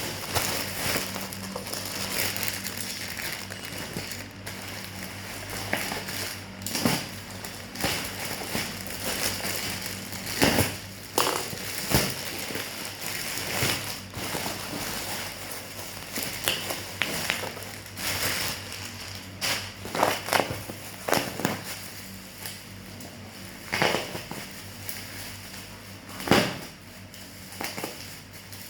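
Packaging being handled and opened by hand: irregular crinkling, crackling and rustling with sharp clicks scattered throughout, over a steady low hum.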